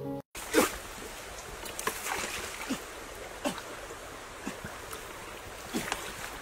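Water sloshing and splashing in a shallow stream as a man wades through it and reaches into the water with his hands, with the stream's steady flow underneath. The splashes are irregular, about one a second.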